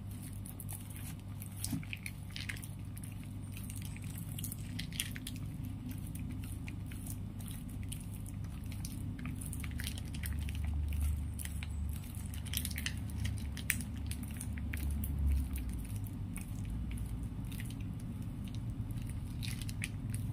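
Block of mozzarella cheese rubbed up and down a flat handheld metal grater over a plastic bowl: irregular raspy scrapes, one stroke after another. A steady low hum runs underneath, louder for a few seconds around the middle.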